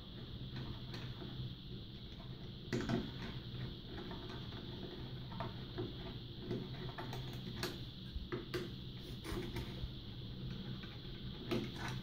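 Phillips screwdriver loosening the captive screws in the bottom cover of an Intel NUC mini PC: soft, irregular clicks and ticks of the tip turning in the screw heads, with a sharper click about three seconds in and a quicker run of ticks past the middle. A faint steady hiss lies underneath.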